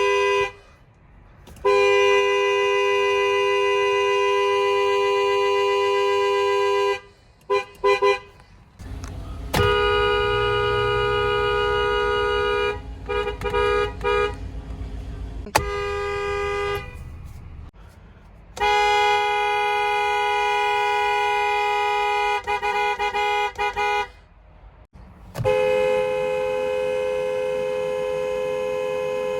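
A run of car horns from different cars, cut one after another: long steady blasts of several seconds alternate with short toots, each horn sounding two notes at once. Under one long blast, about a third of the way in, an engine's low running rumble is heard.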